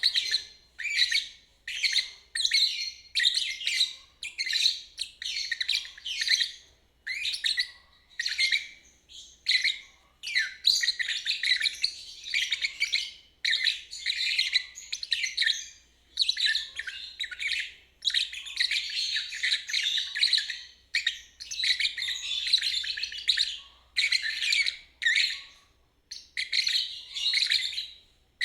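Lovebird chattering in a fast, high twitter ('ngeriwik'), in repeated bursts with short pauses between them, some bursts running on for several seconds.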